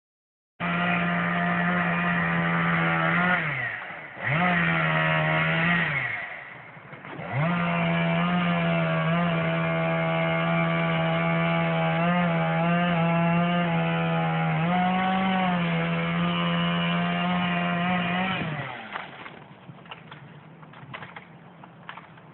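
Two-stroke chainsaw running at high revs while cutting into a poplar trunk. Twice it drops back toward idle and revs up again, and it shuts off near the end.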